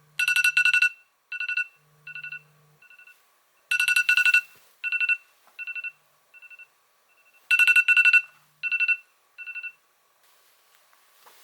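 A phone alarm ringtone repeating in three cycles about four seconds apart. Each cycle is a pair of loud, rapid electronic trills followed by fainter, shorter ones that fade away.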